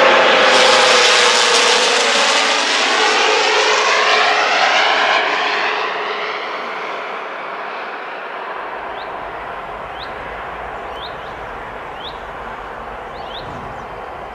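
Fokker 50 twin-turboprop passing overhead: a steady propeller drone whose tone slowly falls in pitch as it moves away, fading over the first six seconds. After that a faint steady hiss remains, with short bird chirps from about nine seconds in.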